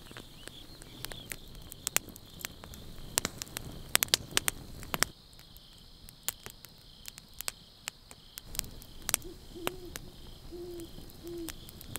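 Campfire crackling with irregular sharp pops, over a steady chirring of crickets. Near the end an owl hoots three times.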